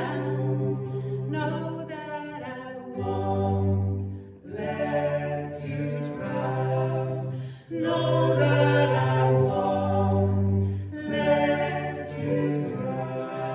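A folk song sung in close three-part harmony by a woman's lead voice with a second woman and a man, in slow held phrases that break off briefly about four and a half and seven and a half seconds in.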